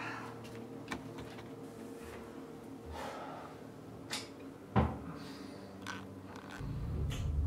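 A few short knocks and clicks over a steady low hum, the loudest knock a little before five seconds in. Near the end a bathroom sink tap is turned on and water starts running.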